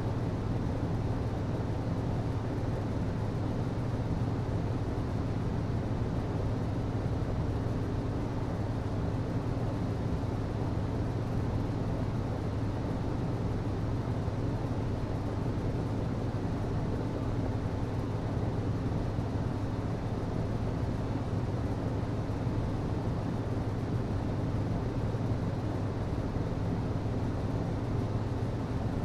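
HVAC system running: a steady, unchanging low hum with an even rushing noise over it.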